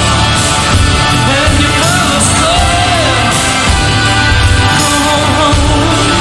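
Loud Celtic-style music: a gliding lead melody over sustained held tones and a steady low beat.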